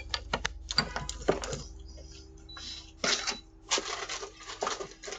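A quick run of sharp metallic clicks and rattles from hands working metal hardware at a front door, then a few scraping, rustling sounds, picked up by a doorbell camera's microphone with a steady hum underneath.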